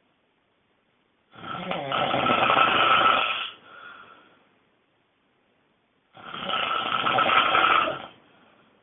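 A person snoring extremely loudly: two long, rasping snores about five seconds apart, each lasting about two seconds, the first trailing off in a fainter breath, with silence between.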